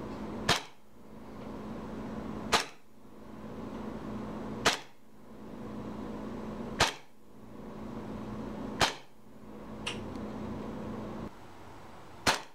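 Western Arms 1911 gas blowback airsoft pistol fired six times, one sharp shot about every two seconds, through a chronograph. A fainter click falls between the fifth and sixth shots.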